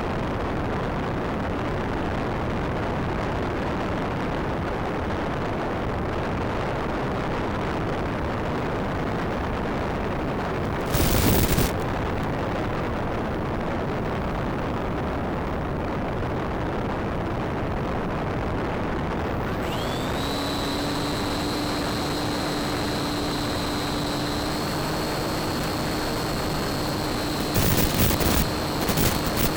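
Steady rushing noise on the audio of a Bixler RC plane's FPV flight, with a brief loud crackle about eleven seconds in. About twenty seconds in, a steady whine with a low and a high tone sets in, and a few crackling bursts come near the end.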